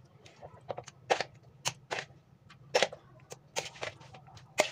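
A spoon clinking and scraping as chopped salad is spooned from a bowl onto a metal serving tray: a string of irregular sharp clicks and clinks.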